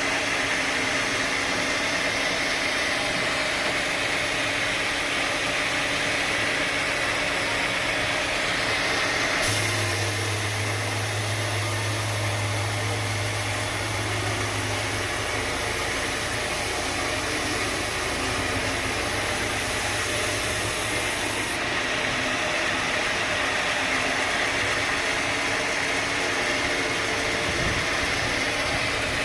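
Sawmill machinery running steadily with an engine-like drone. About a third of the way in, a low hum and a high hiss join it for several seconds, then drop away.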